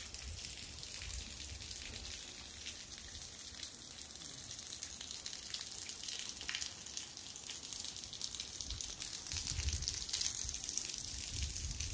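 Light rain and dripping water: a steady hiss with many fine drop ticks. Low rumbles on the microphone come and go, strongest near the end.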